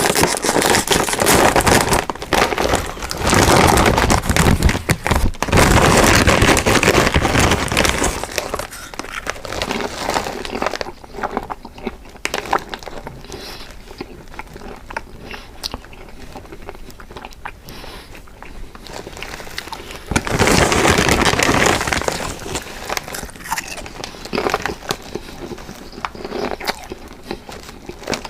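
Close-up crunching and chewing of Lay's potato chips: loud, dense crunching for the first several seconds and again about twenty seconds in, with softer crackly chewing in between.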